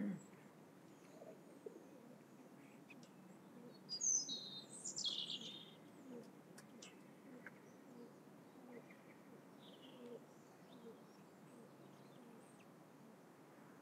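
Birds chirping: a short flurry of high calls about four seconds in, then a few faint scattered chirps over quiet outdoor background.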